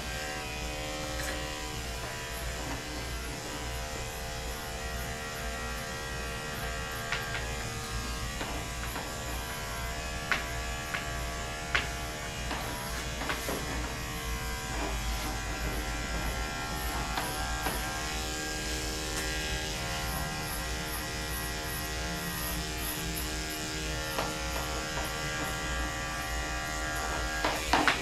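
Andis electric dog clipper fitted with a #7 blade, buzzing steadily as it is run through a dog's coat, with a few sharp clicks along the way.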